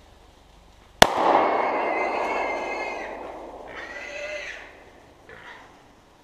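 A single .45 ACP pistol shot about a second in, echoing through the woods, followed by a shot hog squealing: one long squeal of about two seconds, then two shorter squeals.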